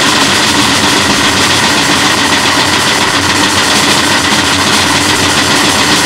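Harsh noise music: a loud, unbroken wall of distorted noise covering all pitches at once, with no beat, melody or voice.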